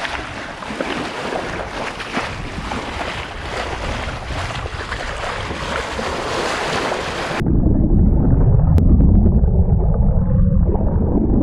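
Sea water rushing and splashing along a moving sailboat's bow wave, with wind on the microphone. About seven seconds in, the sound turns suddenly to a muffled, low underwater rumble as the camera goes below the surface.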